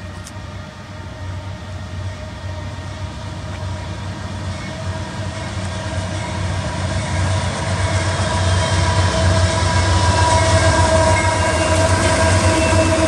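Two Union Pacific GE AC4400CW diesel-electric locomotives, each with a 16-cylinder GE 7FDL engine, leading a loaded coal train. A low engine rumble with a steady high whine grows louder as the locomotives draw near and pass, and is loudest from about eight seconds in.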